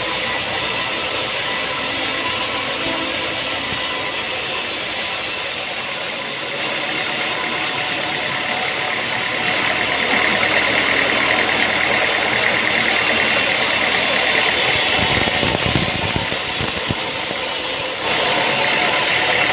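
An engine running steadily with a mechanical rattle, getting louder about ten seconds in and again near the end.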